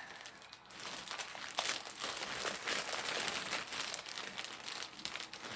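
Plastic shipping bag crinkling and rustling in quick, irregular bursts as it is handled and pulled open by hand without scissors.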